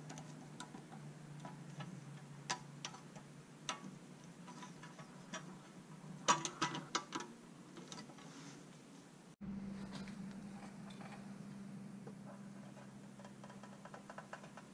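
Light metallic clicks and taps of needle-nose pliers bending and seating the sheet-metal tabs on a pressed-steel Tonka toy truck's frame, with a quick run of clicks about six seconds in. Fainter ticks follow over a steady low hum.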